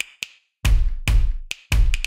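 Background music: a percussive beat of sharp clicks with two deep, loud bass-drum hits, about half a second in and again near the end.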